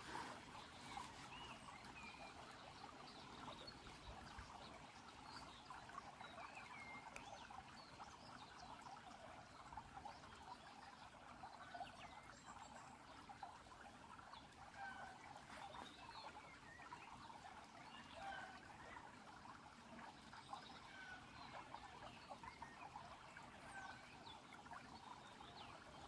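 Shallow stream trickling over pebbles and stones, a faint steady flow, with short high chirps scattered through it.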